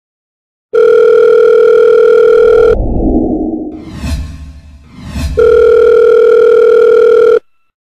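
Telephone line tone, a loud steady electronic hum, sounding for about two seconds, breaking off, then sounding again for about two seconds before cutting off sharply. In the gap between the two tones come a low rumble and two quick whooshes.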